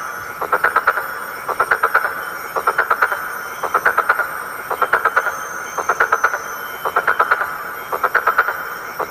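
An animal calling over and over: bursts of about six rapid pulses, roughly one burst a second, nine bursts in all.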